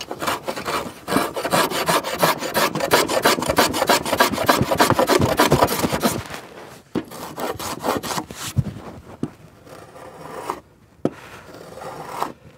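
Block plane shaving the end grain of a pine board: a run of quick, short scraping strokes, several a second, for about five seconds, then fewer, lighter strokes. The end is being cleaned up smooth as a finished end for painting.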